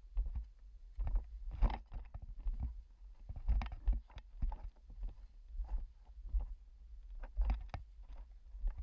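Irregular knocks and scrapes, as of gear and body moving against rock, over a low rumbling handling noise.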